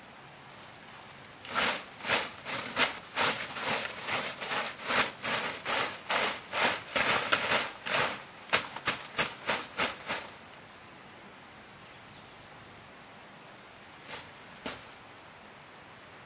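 Bundled straw broom swept in quick scratchy strokes over the dirt ground, about two or three strokes a second, stopping about ten seconds in. Two short knocks follow near the end.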